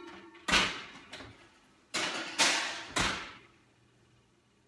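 Kitchen oven door being opened and shut while the oven is checked before preheating: a run of loud clunks and bangs in the first three seconds, each dying away quickly.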